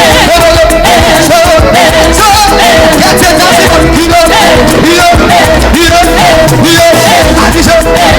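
Loud praise music, with singing over a steady beat.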